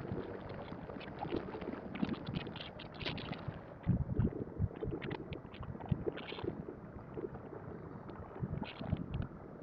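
Motorcycle riding sound with wind rushing over the rider's microphone, broken by irregular gusts and short knocks, and engine and road noise underneath.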